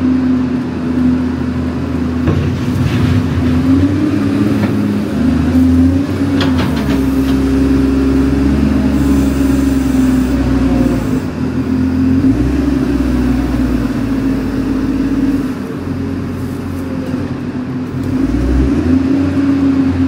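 Wheel loader's diesel engine running under load, its pitch rising and falling as the machine drives into a straw bedding pack and lifts a fork load, with a couple of brief clanks along the way.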